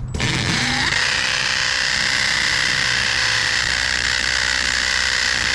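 Milwaukee M18 cordless drill boring into a concrete block wall, spinning up in the first second and then running steadily at full speed.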